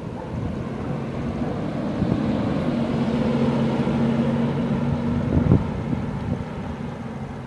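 A minivan passing close alongside a bicycle: its engine hum and tyre noise swell over a few seconds, then fade as it pulls ahead, with wind on the microphone. A brief thump comes about five and a half seconds in.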